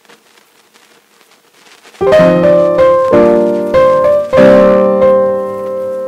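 Background piano music: faint at first, then chords struck about two seconds in and again several times, each ringing on and fading, the last one dying away slowly near the end.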